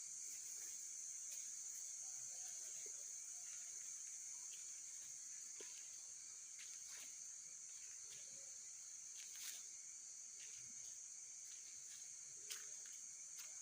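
Faint steady high-pitched chirring of night insects, crickets, with a few scattered light clicks, the sharpest near the end.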